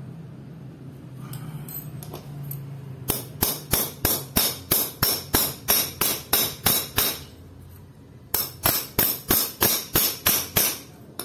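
Steel bicycle freewheel cog being hammered straight with an adjustable wrench against a concrete ledge. There are two runs of sharp, ringing metal-on-metal strikes, about three a second. They start about three seconds in and pause briefly around seven seconds in.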